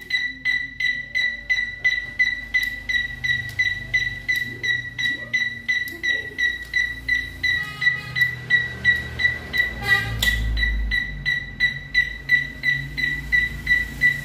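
Bicycle turn-signal tail light's beeper sounding a high, even beep about three times a second while the indicator flashes. A low rumble comes in briefly about ten seconds in.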